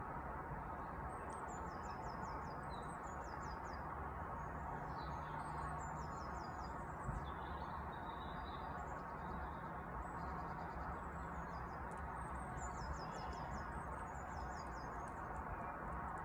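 Garden birds singing over a steady background hiss: repeated short phrases of quick, high notes, each run stepping down in pitch.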